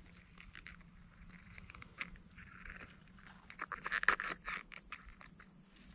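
Faint crackling and rustling of dry fallen oil palm fronds underfoot, in scattered clicks that bunch together about four seconds in.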